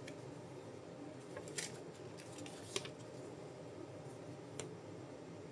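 Light clicks and crinkles of a Gunpla model kit's plastic parts and bags being handled: three sharper clicks, about a second and a half in, near three seconds in and about four and a half seconds in, over a faint steady hiss.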